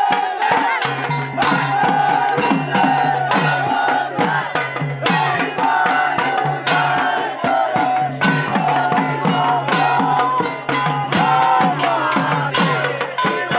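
Bengali folk ritual music: a dhol barrel drum and brass kansar plates struck with sticks keep a fast, steady beat, with a wavering high melody line over it.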